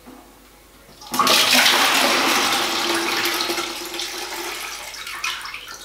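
Plastic toilet cistern being test-flushed with its push-button: water rushes out about a second in, then slowly tails off.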